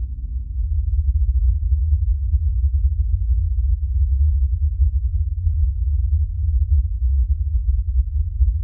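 A steady, deep rumble with nothing higher-pitched above it, growing louder about a second in.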